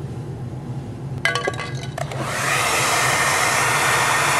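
A few sharp clicks and clinks about a second in, then a handheld hair dryer starts about two seconds in, rises quickly and runs steadily, blowing hot air.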